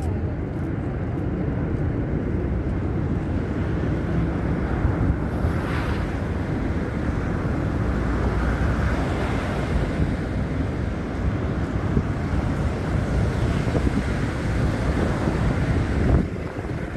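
Storm wind buffeting a handheld phone's microphone: a steady, rumbling rush of noise, heaviest in the bass, that drops away abruptly near the end.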